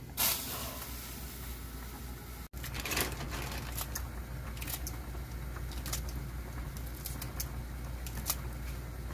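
Pot of fish cake soup boiling hard on a gas stove: frothy bubbling with frequent short pops and ticks over a steady low hum, louder just after the start and again about three seconds in. The pot is close to boiling over.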